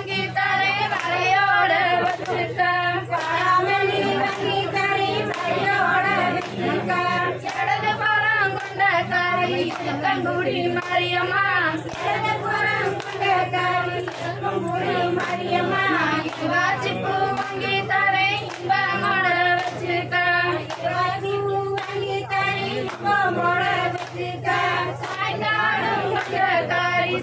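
A group of women singing a Tamil kummi folk song in chorus, keeping time with steady rhythmic hand claps.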